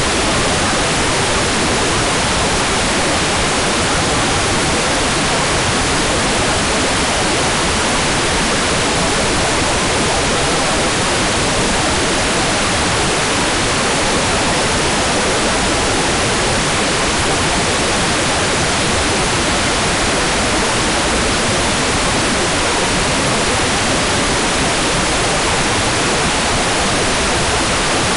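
Hairdryer running steadily: an even, unbroken rush of blown air, the same in pitch and level throughout.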